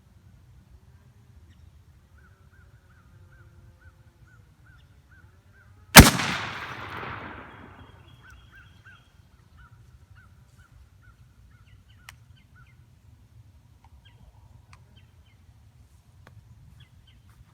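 A single 12-gauge shot from a Mossberg Maverick 88 pump shotgun firing a 1 oz slug, about six seconds in: one sharp, very loud bang whose echo dies away over about two seconds.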